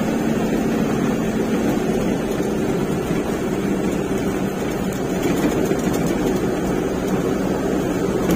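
Cargo truck's engine running steadily under way, a low even drone with a faint steady hum, no change in speed.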